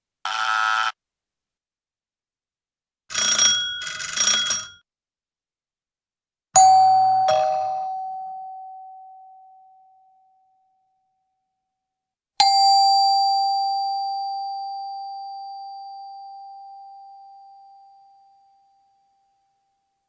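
A run of different doorbells: a short buzzer sound, then two short rings about a second apart, then a two-note ding-dong chime falling in pitch, and finally a single chime note that rings out slowly for about six seconds.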